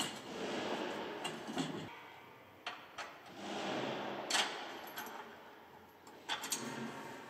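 Metal parts of a stubble breaker mount scraping and clinking while the bracket is fitted and bolted. There are two long sliding scrapes and a scatter of sharp metallic clicks.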